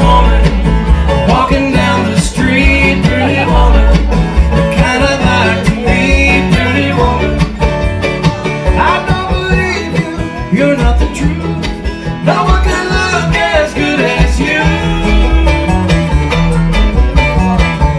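Bluegrass band playing live: mandolin, acoustic guitar, banjo and upright bass, with a man singing lead over the plucked strings.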